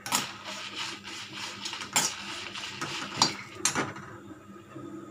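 Metal spatula scraping and knocking against an aluminium kadai as dry red chillies are stirred and roasted in it, the chillies rustling against the metal, with several sharp clinks, the loudest a little past three seconds in. The stirring stops about four seconds in.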